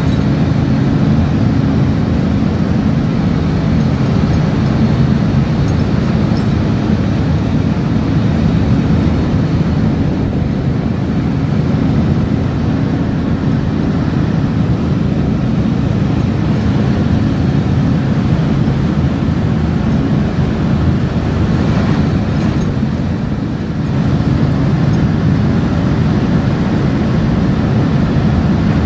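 Ship's engines and deck machinery running in a steady low drone, with a few constant hum tones over a rumble that dips briefly near the end.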